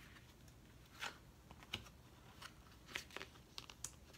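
Faint rustling and light taps of a hardcover picture book being opened and its pages handled: a handful of short, soft clicks scattered over a few seconds.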